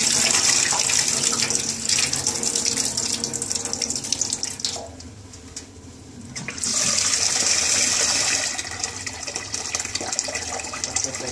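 Water splashing into a stainless steel sink as red lentils are rinsed in a saucepan: the rinse water is poured off the lentils, the splashing stops for about two seconds near the middle, then a tap runs into the pan of lentils.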